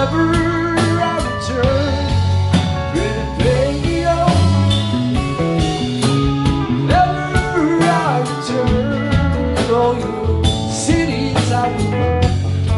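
Live band playing: electric guitars, electric bass, drum kit and keyboard, with a lead line of bending, gliding notes on top.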